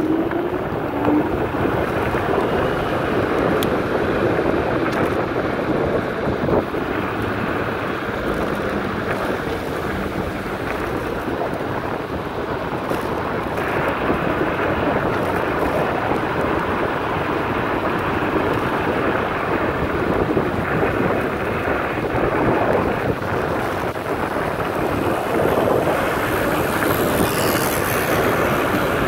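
Steady wind rush buffeting the microphone of a camera riding along on a moving electric scooter.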